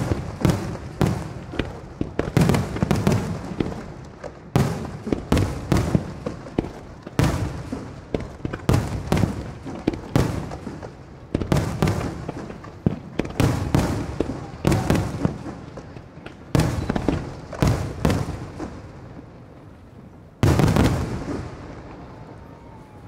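Fireworks display: aerial shells bursting in a rapid, irregular barrage, often several bangs a second. About twenty seconds in, one loud burst is followed by the sound fading away.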